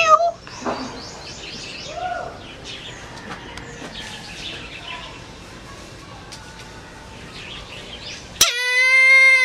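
Brahminy kite giving one long, high call near the end that holds its pitch and then falls away, after faint chirping from small birds.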